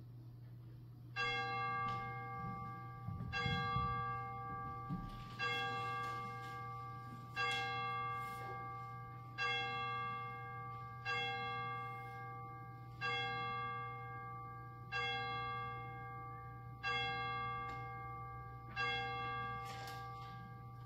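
A chime struck ten times on the same note, about once every two seconds, each strike ringing out and fading before the next, as a call to worship.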